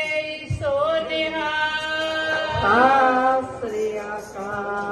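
Sikh devotional hymn (shabad kirtan) sung in Punjabi, long held notes that slide up and down, with a couple of low drum thumps.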